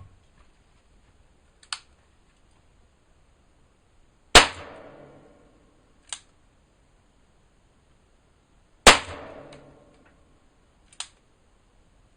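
Zoraki R1 revolver firing 6 mm Flobert rounds: two sharp shots about four and a half seconds apart, each trailing off in a short echo. Lighter clicks come between the shots.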